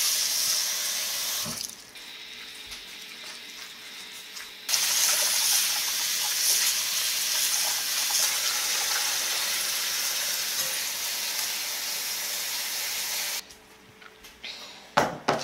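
Kitchen tap running onto green laver seaweed in a stainless mesh strainer as hands wash it to remove impurities. The flow drops off about two seconds in, comes back strong near five seconds and stops shortly before the end, followed by a few sharp clicks.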